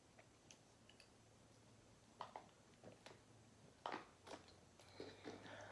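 Faint chewing of creamy alfredo pasta: a few soft, wet mouth clicks and smacks, more of them in the second half, over a low steady hum.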